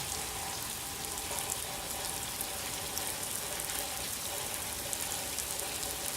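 Steady rain falling, with scattered sharp drops ticking through it.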